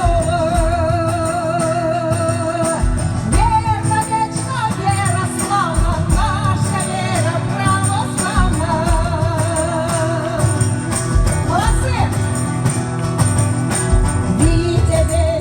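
Russian church bells ringing a chime, with deep strokes recurring under higher bells, and a singing voice with a wavering vibrato carried over them.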